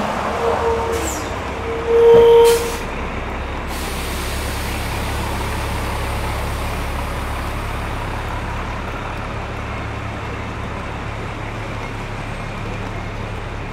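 City street traffic: a vehicle horn gives two short honks, then a longer, louder honk about two seconds in, alongside a brief hiss. After that, a steady low rumble of engines.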